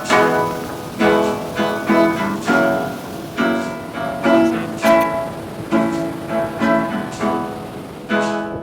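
Acoustic guitar being played: a run of picked notes and chords, each ringing out and fading before the next.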